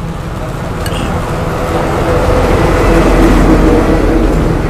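A large road vehicle's engine passing on the street, growing louder to a peak about three seconds in and then fading.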